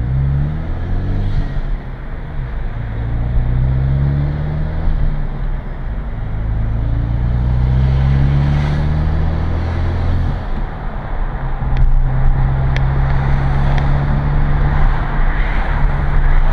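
2013 Hyundai Veloster Turbo's turbocharged four-cylinder engine, heard from inside the cabin through a Solo Performance V-Mach 2N1 cat-back exhaust with the resonator on, accelerating onto the highway. The engine pitch climbs three times with a drop at each gear change over the first ten seconds, then holds steady at cruise. It has the deep tone and no drone that the owner credits to this exhaust.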